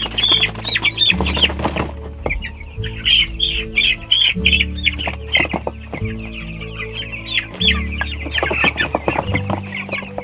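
A crowd of young meat-chicken chicks cheeping continuously, with scattered knocks, scratching and wing flaps as they are handled and scrabble in a plastic tote. Background music with low sustained chords runs underneath.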